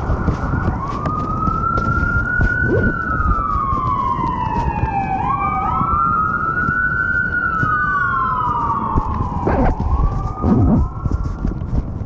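Emergency vehicle siren in a slow wail, its pitch rising and falling about every five seconds, with a second siren tone a little behind it, over a heavy low rumble.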